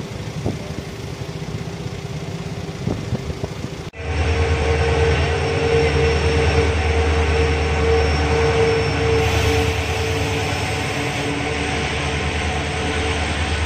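Indian Railways WDG4 diesel locomotive hauling a freight train past a station platform, its engine drone loud and steady with a deep hum and a held mid-pitched tone. It starts suddenly about four seconds in, after lower background noise with a few clicks.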